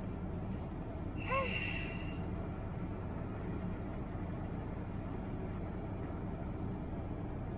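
Vehicle engine running steadily at low speed, heard from inside the cab as a low hum. About a second and a half in there is a short breathy noise with a brief squeak-like tone.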